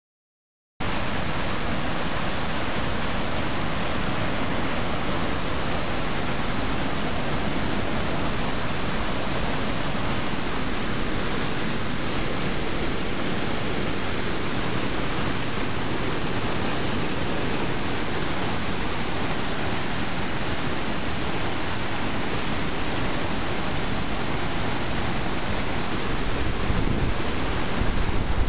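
Floodwater of a swollen creek rushing: a steady, even rush of water noise that starts abruptly about a second in and grows a little louder near the end.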